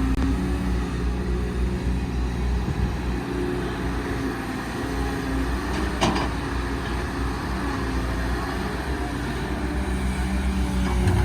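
Caterpillar 315 DL hydraulic excavator's diesel engine running under working load, its pitch and level shifting as it digs and swings, with one sharp clank about six seconds in.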